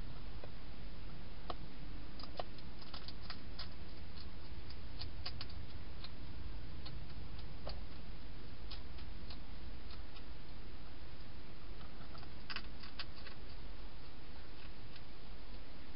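A wild hedgehog eating dry food inside a clear plastic feeding box: irregular small crunching clicks, bunched around five seconds in and again near the end, over a steady low background hiss.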